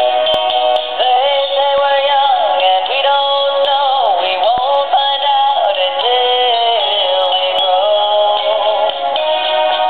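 Animated plush singing-dog toy playing its song: a synthesized singing voice carrying a melody over electronic backing music.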